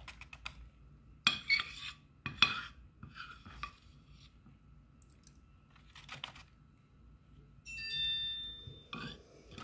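A metal spoon clinking and scraping against a plastic candy tray as chocolate cookie mixture is spooned into its cups, in a few separate knocks, the loudest about two and a half seconds in. Near the end a bell-like ringing tone lasts about a second.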